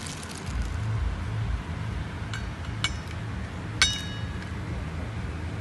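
Clumped bentonite cat litter and granules tipped from a plastic scoop into a stainless steel bowl: two light clicks, then a sharper clink with a brief metallic ring a little under four seconds in, over a low rumble of handling noise.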